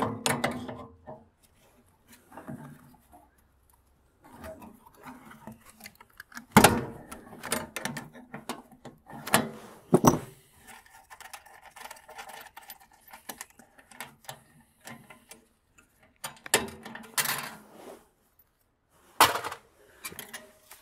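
An adjustable wrench working a nut off a bolt on an old Sears Craftsman welder's terminal: scattered metal clinks and scrapes, with a few sharp metallic knocks.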